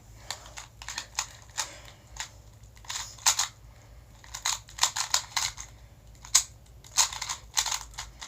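Magnetic 2x2 speed cube being turned quickly by hand in a timed solve: a rapid, irregular run of plastic clicks and short clacking bursts of turns, with brief pauses between groups of moves.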